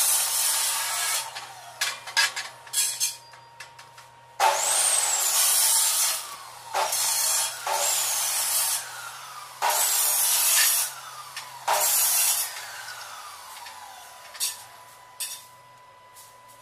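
Stick (arc) welding on steel square tubing: a series of short tack welds, about six arcs of a second or two each, crackling and hissing, with gaps between as the electrode is lifted. A faint falling whine follows several of the arcs, and the last few tacks near the end are brief and quieter.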